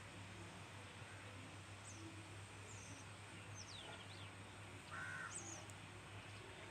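Faint birdsong from small birds chirping, with a single short caw about five seconds in, over a steady low hum.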